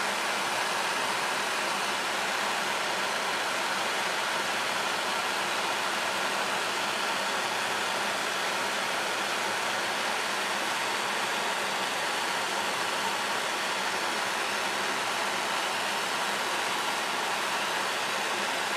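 Handheld propane torch burning with a steady hiss as its flame heats a steel screwdriver shaft to draw a temper colour to the tip.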